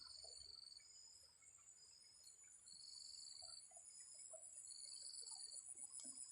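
Faint insect chorus: a steady high-pitched whine with a pulsed chirp repeating about once a second over it.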